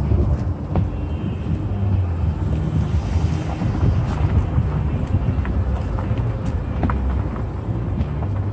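Steady low rumble of a car moving slowly, with wind buffeting the microphone and a few faint ticks.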